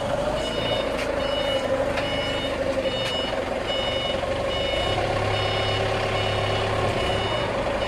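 Repeated electronic beeping, about two beeps a second, over a steady mechanical hum; a deeper hum joins for a couple of seconds after the middle.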